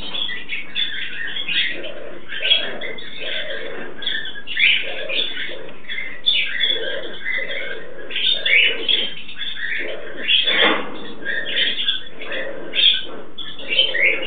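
Blue-fronted amazon parrots making a run of short, repeated calls during mating, about one a second.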